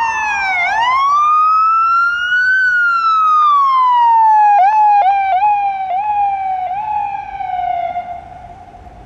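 Electronic emergency-vehicle siren wailing. The pitch falls, rises, then falls slowly, and breaks into a run of about six quick chirps midway. It settles low and fades out about a second before the end.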